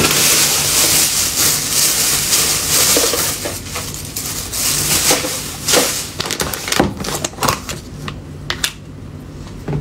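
Close handling noise at a table: loud rustling for the first few seconds, then a run of light clicks and knocks as a small plastic sauce cup's lid is pried off.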